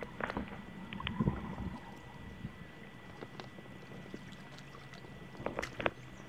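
Muffled water sloshing and bubbling around an underwater camera as a snorkeler moves through a creek pool, with scattered clicks and knocks. Louder bursts about a second in and near the end, and a faint steady high tone underneath.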